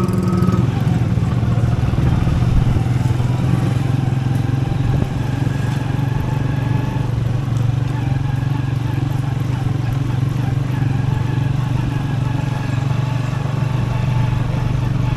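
Motorcycle engine running steadily with a low hum, heard from the rider's seat.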